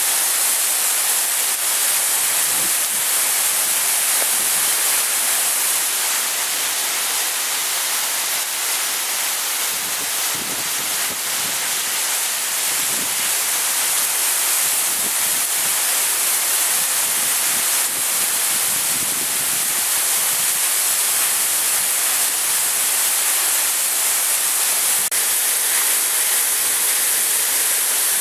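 Steady, unbroken rush of Bridal Veil Falls, heaviest in the hiss.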